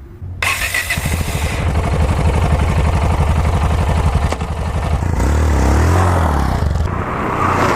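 Motorcycle engine that starts loud and suddenly about half a second in, runs with a steady pulsing beat, then rises and falls in revs near the middle.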